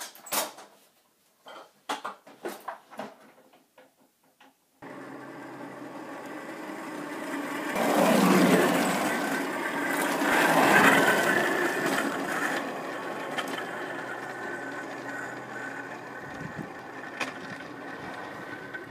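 A few short knocks and clicks. Then a home-built go-kart rolls along asphalt: a steady rolling noise with a faint hum that grows louder as it passes close, about eight to eleven seconds in, and slowly fades as it moves away.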